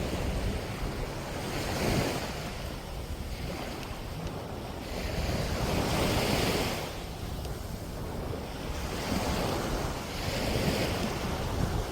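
Small sea waves washing up the beach, swelling and fading about every four seconds, with wind rumbling on the microphone.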